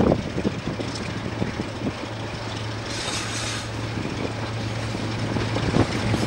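Freight train of tank wagons rolling past on the rails: a steady rumble of wheels with small rapid clicks and a low hum underneath.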